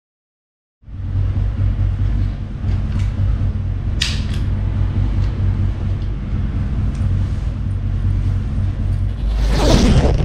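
A steady low rumble with a few sharp plastic clicks, the loudest about four seconds in, as a GoPro chest-mount harness is handled and adjusted. It ends in a short whoosh near the end.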